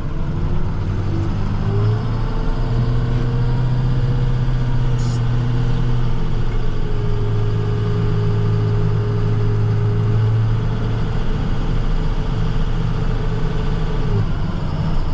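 Snowplow truck driving, its engine and road noise heard from inside the cab: a steady hum whose pitch climbs in the first couple of seconds as the truck speeds up, then holds level, with a higher whine that stops near the end.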